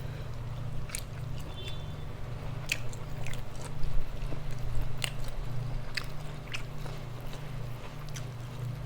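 Close-up chewing and biting into grilled chicken, with irregular wet mouth clicks and smacks. A steady low hum runs underneath.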